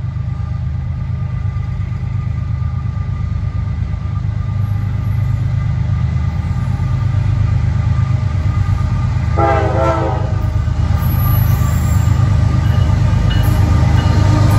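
GE ES44AH diesel locomotive, its GEVO V12 engine rumbling low and growing steadily louder as it approaches at the head of a loaded coal train. A short horn blast sounds about two-thirds of the way in.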